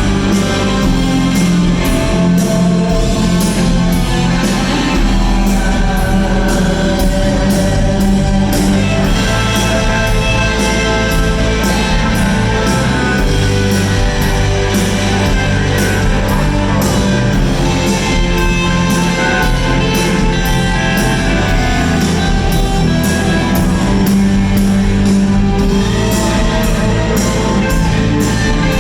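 Live rock band with electric guitars and a drum kit playing loudly to a steady beat, with the long echo of a large hall.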